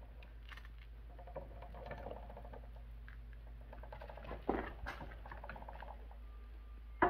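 Mini bike chain drive freewheeling with the engine off: the roller chain running lightly over the sprockets and jackshaft as the rear wheel spins, a faint patter of ticks. A few short knocks come about four and a half seconds in and again near the end.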